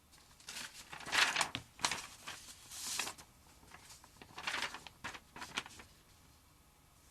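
Soft bristle brush scrubbing debris off a gas water heater's metal flame trap, in several short scratchy strokes that come in two clusters.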